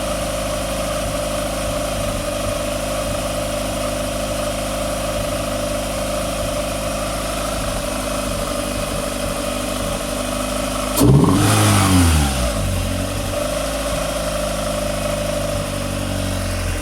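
Fiat Panda engine idling with a misfire, running slightly unevenly. About eleven seconds in, the revs are blipped once, rising sharply and falling back to idle over a second or two.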